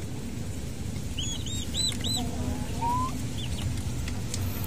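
Week-old turkey poults peeping: a quick run of about five high, arched peeps about a second in, a few more later, and a lower rising call near the middle, over a steady low background rumble.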